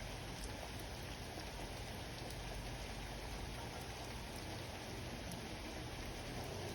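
Steady rain falling during a thunderstorm, an even hiss with a few faint drop ticks.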